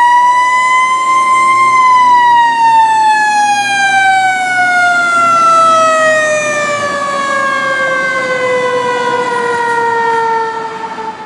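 Fire truck siren: one long wail that rises briefly, then falls slowly in pitch over about nine seconds and cuts off near the end.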